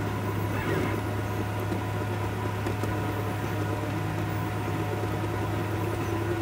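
3D printer running while it prints: a steady mechanical hum with several faint, constant whining tones over it.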